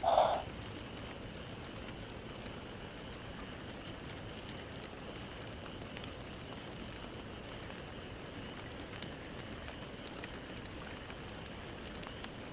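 Steady background hiss with a faint high, even hum, and one short louder sound lasting about half a second right at the start.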